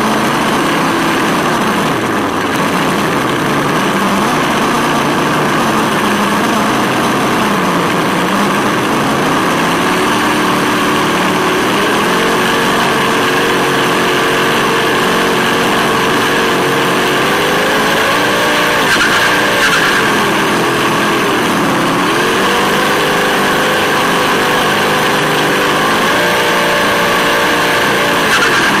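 An RC car's engine-sound module (Sense Hobby ESS-One) playing a simulated V8 turbo engine through its speaker, the engine note rising and falling with the throttle, with a couple of clear rev-ups late on, over a steady hiss.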